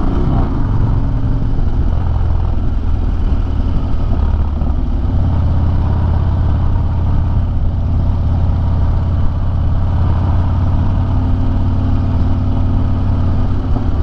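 Harley-Davidson Dyna's V-twin engine through a Bassani Road Rage 3 exhaust, running as the bike is ridden. Its note shifts between about two and five seconds in, then holds steady.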